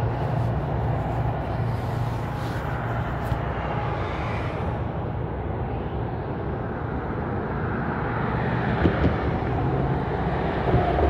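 Interstate highway traffic: a continuous low hum and tyre hiss. The hiss swells and fades twice as vehicles pass, and there are two short thumps near the second pass.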